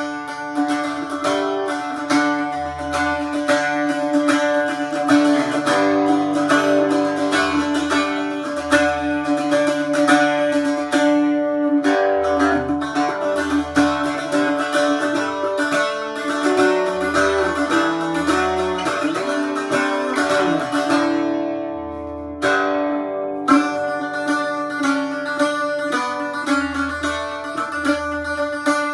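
Roosebeck Irish bouzouki, tuned G-D-A-D, played as a tune of quick plucked notes over a steady ringing drone. About 21 seconds in the sound dies away, and the playing starts again about a second and a half later.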